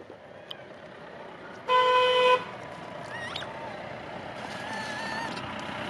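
A vehicle horn honks once, about two seconds in, a single steady note lasting under a second, over a background of traffic noise that slowly grows louder. A few faint short calls rise and fall in pitch afterwards.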